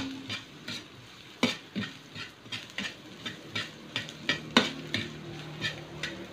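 A metal ladle scraping and knocking against a metal wok as chopped onion and ginger are stir-fried in oil, about three irregular strokes a second, over a light sizzle of frying. The hardest knocks come right at the start, about a second and a half in, and near the middle.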